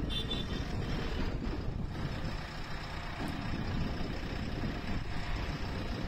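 JCB 3DX Plus backhoe loader's diesel engine running steadily as the machine climbs the loading ramps onto a flatbed trailer.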